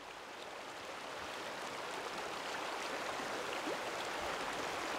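Small mountain creek splashing and tumbling over rocks, a steady rushing of water that fades up over the first couple of seconds.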